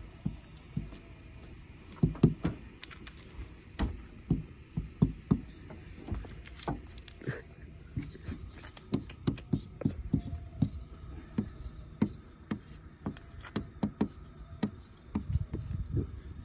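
A run of irregular knocks and thumps, sometimes several a second, with the loudest about two seconds in and a dense cluster near the end.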